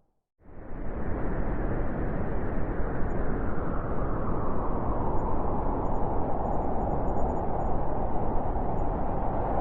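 Blizzard wind: a steady rush of storm wind with a howling band that grows stronger toward the end. It comes in abruptly about half a second in, after a brief near-silent gap.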